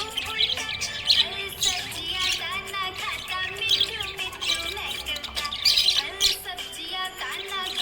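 Budgerigar warbling and chirping: a continuous, busy chatter of short chirps, squeaks and twisting whistles.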